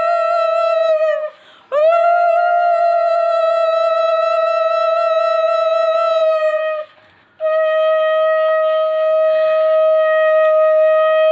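Conch shell (shankha) blown in long, steady blasts, the note sagging in pitch as each blast ends, with two short breaks for breath, about one and a half and seven seconds in.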